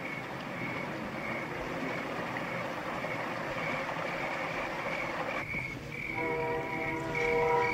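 Night street ambience with a steady, rapid chirping of night insects. About six seconds in a sustained horn-like chord of several steady tones begins.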